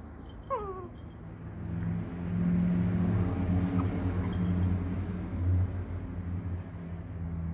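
A baby monkey gives one short squeak that falls in pitch. A low motor hum then swells and fades over several seconds.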